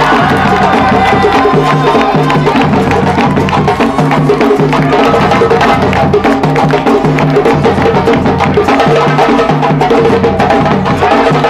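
Live ensemble of hand drums, congas among them, playing a fast, driving rhythm, with a low drum repeating the same short figure underneath.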